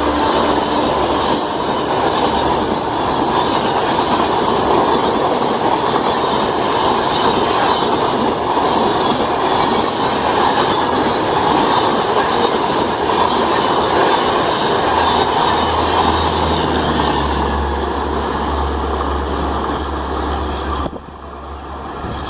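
Howrah Rajdhani Express passing at speed: a loud, steady rush of wheels on rail as the coaches go by. The level drops sharply near the end as the train clears.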